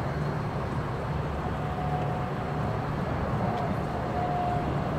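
Steady low background rumble, with a faint thin tone coming and going from about a second and a half in.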